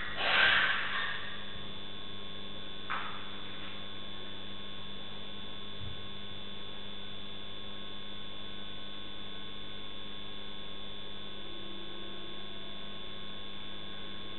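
Steady electrical hum from a CCTV camera's audio, with fixed tones that do not change. A short animal cry fades out in the first second, and there is a faint brief sound about 3 s in.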